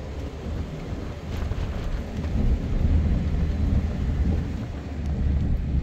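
Deep, noisy rumble of an off-road 4x4 driving over rough ground, growing louder about two seconds in.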